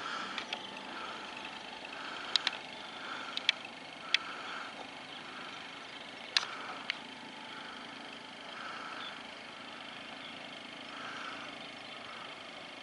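Outdoor ambience of distant road traffic, a steady hum, with several short sharp clicks or chirps over it, most of them in the first seven seconds.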